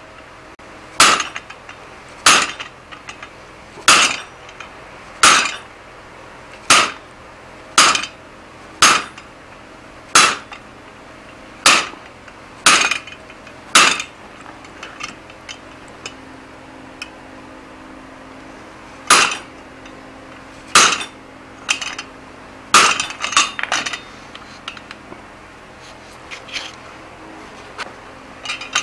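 Hand hammer striking the top die of a guillotine tool on the anvil, steel on steel, cutting shoulders into a hot steel bar: about a dozen blows at a steady pace of roughly one every second and a half. The blows stop for several seconds, a few more follow, and then lighter metal clinks come near the end.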